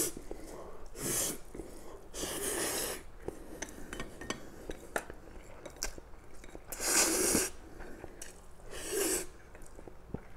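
A person slurping instant fried noodles off chopsticks in several short, loud sucking pulls: one about a second in, a longer one around two to three seconds, the loudest about seven seconds in, and another near nine seconds. Chewing and small clicks come between the slurps.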